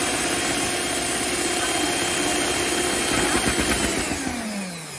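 Electric hand mixer whipping cream in a bowl, its motor running steadily. About four seconds in it is switched off, and its whine falls in pitch as the motor winds down.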